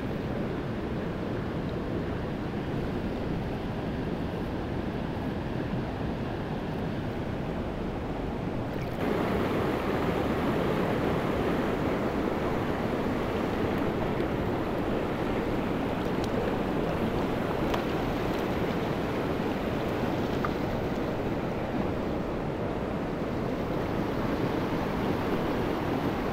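Mountain stream water rushing steadily. About nine seconds in it abruptly becomes louder and fuller.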